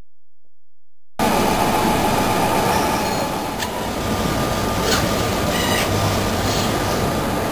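Silence, then about a second in the steady mechanical running noise of a food-processing conveyor line cuts in, with a few sharp clicks and a short, rapid ticking rattle near the end.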